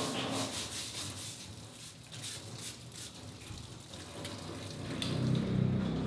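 Tap water splashing into a stainless steel sink while a pineapple is scrubbed under it by hand, an irregular mix of running water and rubbing. Music comes in near the end.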